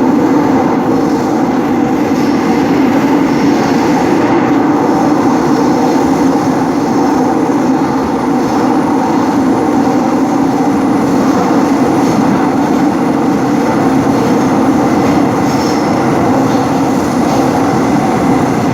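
Seoul Subway Line 5 train running at speed through its tunnel. A steady, loud rumble of wheels on rail with a constant drone.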